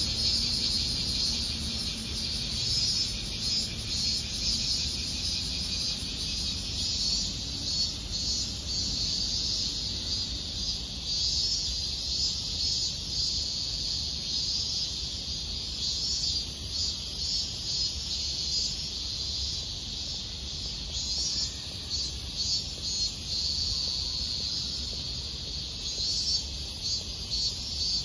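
Cicadas calling steadily from the trees: a dense, shrill, continuous buzz with a fluttering pulse in it, from large brown cicadas and robust cicadas (aburazemi and minminzemi).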